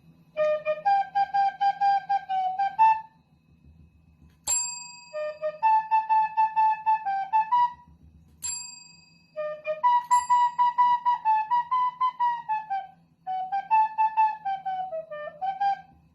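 Whistle-like, flute-toned melody in short phrases of quickly repeated notes, with a single bell ding ringing out between phrases.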